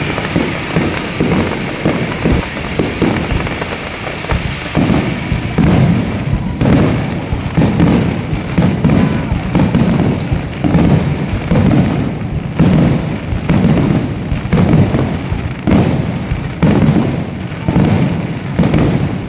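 Aerial fireworks finale: a dense, loud barrage of shell bursts, with heavy booms following one another about once or twice a second from about five seconds in.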